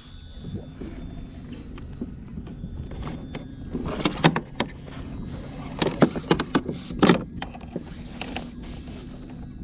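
Scattered hard knocks and clatter of gear handled on a kayak, in two clusters about four seconds in and again six to seven seconds in, over a steady low rumble of wind and water.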